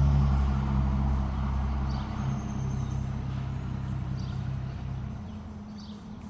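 Low engine hum of a passing motor vehicle, fading steadily as it moves away and dropping out about five seconds in.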